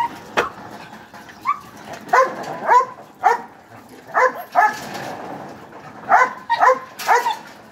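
Small caged dogs barking in short, repeated yaps, about ten of them, several in quick pairs. They are hungry and eager for the kibble being dished out.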